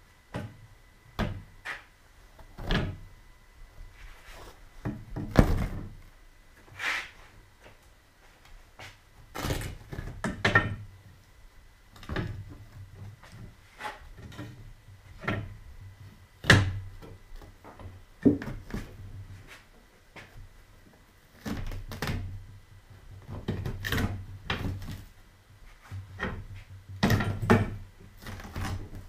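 Irregular thumps, knocks and rustles as a thick slab of sofa foam padding is pulled up and handled over a wooden seat frame with elastic webbing straps.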